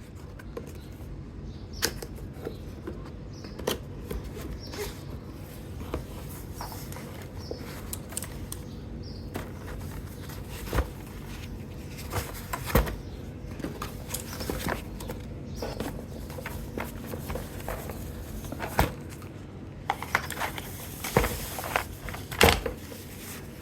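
Irregular clicks, taps and knocks of a mechanical keyboard and its packaging being handled during unboxing, with a denser run of knocks near the end over a faint steady hum.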